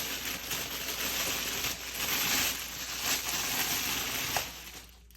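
Packaging rustling and crinkling as a baseball glove is unwrapped, dying away about four and a half seconds in.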